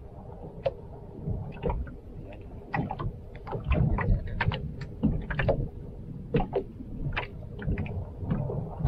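Water slapping against a small open boat's hull, with irregular knocks and clicks over a low rumble.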